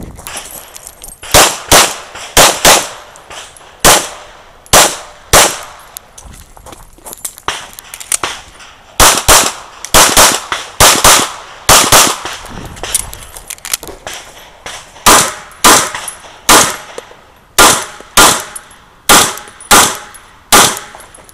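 Semi-automatic pistol shots during a USPSA stage: about thirty shots in quick pairs and fast strings. The strings are separated by a few pauses of two to three seconds.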